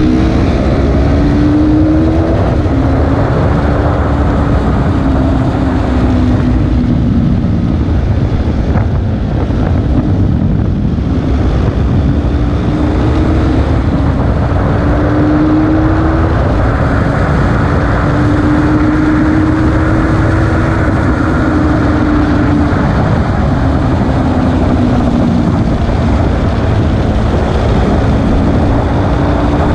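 KTM RC 390's single-cylinder engine ridden hard, its pitch climbing and falling repeatedly with the throttle and gears, over a heavy rush of wind on the bike-mounted microphone.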